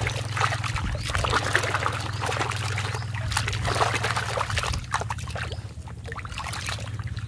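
Muddy water sloshing and splashing in a metal basin as a hand scrubs a plastic toy airplane under the surface, in an irregular stream of splashes.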